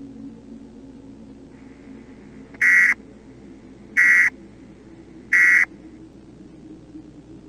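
Three short buzzy EAS end-of-message data bursts, the digital code that closes an emergency alert, about a second and a half apart over a faint steady hum.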